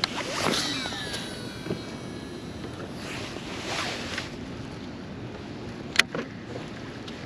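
Steady noise and wind on a small boat, with a few short falling whines near the start and a single sharp click about six seconds in.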